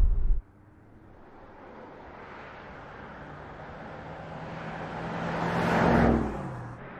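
Mercedes-Benz S 560 Cabriolet's twin-turbo V8 and its tyres on the road, approaching and growing steadily louder, then passing by about six seconds in, the engine note dropping in pitch as it goes past. Just after the start, a louder low rumble cuts off suddenly.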